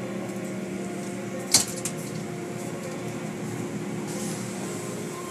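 Automatic car wash heard from inside the car: water and foam sheeting over the windshield and body under a steady mechanical hum, muffled through the car. A single sharp knock about a second and a half in.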